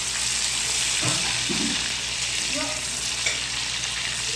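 Cheese frying in a pan, with a steady sizzle throughout.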